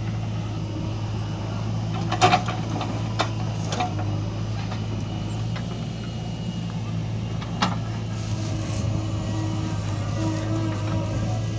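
Diesel engines of a tractor and a JCB backhoe loader running steadily at a low hum, with a few sharp knocks from the backhoe working, the loudest about two seconds in and another near eight seconds.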